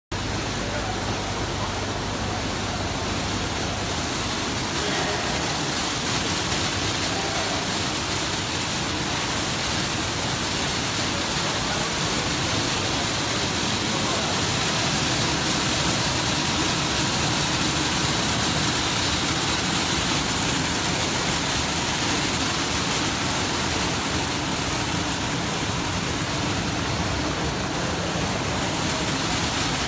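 Optical colour sorter running while sorting dried croton leaves: a steady, even machine noise, with a low hum in the first few seconds.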